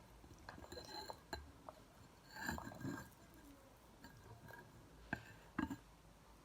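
Spoon clinking and scraping against a bowl while stirring a thick slime mixture of shampoo, toothpaste and talcum powder. Scattered light taps, a louder scraping patch about two and a half seconds in, and two sharp knocks near the end.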